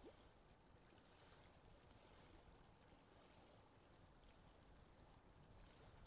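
Very faint lake-shore ambience: small waves lapping gently at the water's edge under a steady soft wind hiss.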